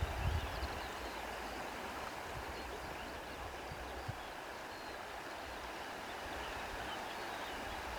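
A steady rushing noise, with faint short high chirps above it and a low rumble near the start.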